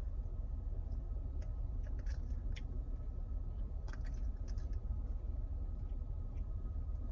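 A few soft, scattered clicks and taps over a steady low hum.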